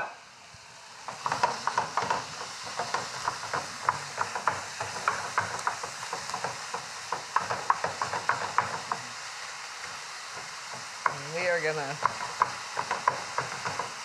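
Raw ground beef and turkey sizzling in a hot stainless steel skillet as a wooden spoon stirs and breaks it up, with frequent short scrapes and taps of the spoon against the pan. The sizzle and stirring start about a second in.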